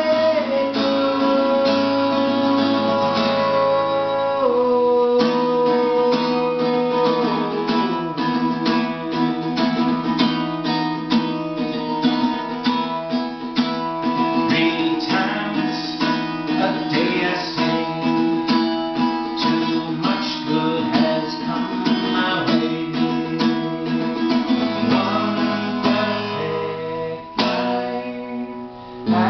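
Acoustic guitar playing an instrumental passage of a song, with picked and strummed chords.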